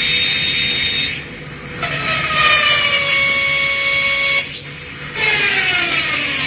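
Metal scraping against metal while iron slag is cleaned off a CNC cutting machine's slats, in three passes with short pauses between them. Each pass carries a high squeal that falls in pitch.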